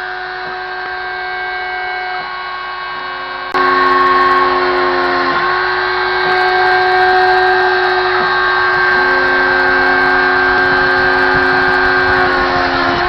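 Stepcraft 600 CNC machine drilling holes in a PCB: the spindle whines steadily while the stepper motors move the tool between holes, so several steady tones come and go every few seconds. About three and a half seconds in, the sound steps up suddenly and gets louder.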